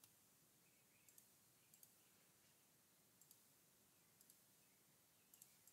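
Faint computer mouse clicks over near silence: about six short pairs of clicks, roughly one pair a second, as items are selected in the CAD program.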